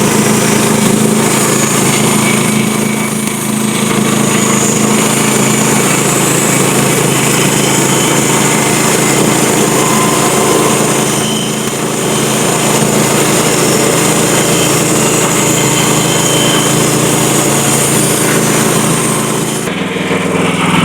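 Wood-Mizer LT15 bandsaw mill running steadily as its blade saws through a log. Near the end the high hiss of the cut drops out while the motor keeps running.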